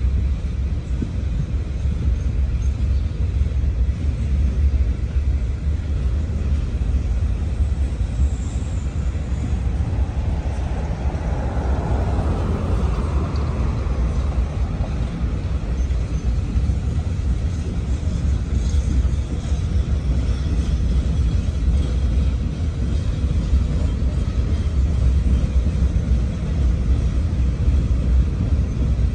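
Norfolk Southern freight train's open-top hopper cars rolling past, a steady low rumble of wheels on the rails. A car swells past and fades away on the road about 11 to 13 seconds in.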